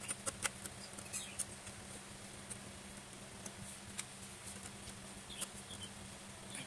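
Small clicks and scratching of wires and spade connectors being handled and pulled off a water dispenser's hot-tank thermostat, busiest in the first second and a half, then a few scattered ticks.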